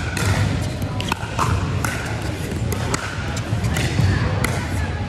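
Pickleball paddles hitting a hard plastic ball in a rally: a string of sharp pops roughly every half second, echoing in a large gym over a steady hall hum.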